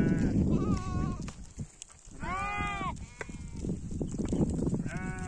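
A walking flock of sheep bleating: several separate bleats, the longest and loudest about two seconds in, another starting near the end, over low background noise.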